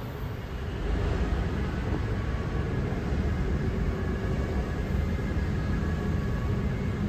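Steady low rumble of a BTS Skytrain approaching an elevated station, a little louder from about a second in, with faint thin whining tones coming in during the second half.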